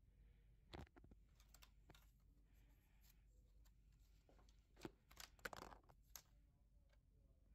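Faint handling noise: scattered soft clicks, rustles and scrapes, with a few louder ones about five to six seconds in.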